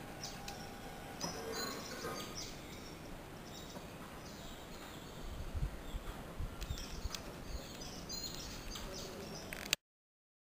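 Outdoor background noise with scattered short bird chirps and a few low thumps around the middle; the sound cuts off suddenly near the end.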